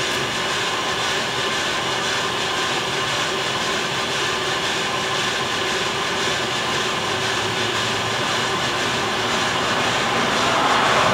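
Bideli 2 kg propane drum coffee roaster running mid-roast, before first crack: a steady, loud rushing noise of its gas burner and airflow fan, growing somewhat louder near the end.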